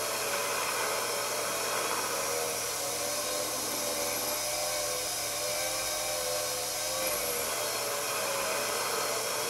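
Miniature hobby lathe running steadily while turning a brass workpiece: an even whir with a slightly wavering motor whine and a low hum.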